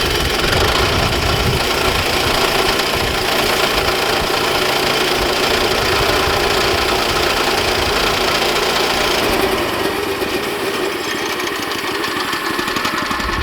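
Woodland Mills HM122 bandsaw mill running at wide-open throttle, its gas engine driving the band blade through a log on the first cut. The sound is steady, then thins out about three-quarters of the way through.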